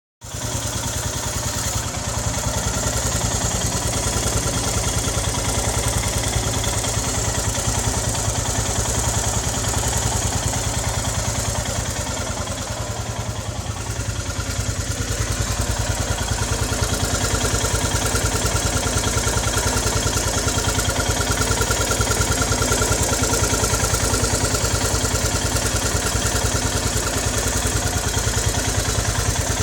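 Royal Enfield Himalayan BS3's 411 cc single-cylinder engine idling hot, sounding thrashy, with a whistling, squeaking 'chi chi' noise from the engine head that is heard only at idle. The fault was traced to a defective cylinder head, which was replaced under warranty.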